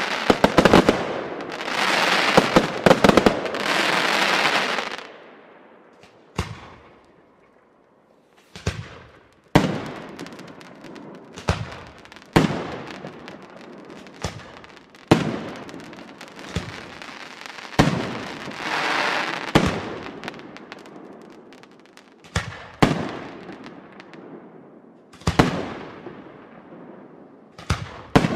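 Aerial fireworks: a dense, rapid crackle of crackling stars for the first five seconds, then after a short lull single shell bursts every one to three seconds, each a sharp bang that trails off, with another spell of crackling partway through.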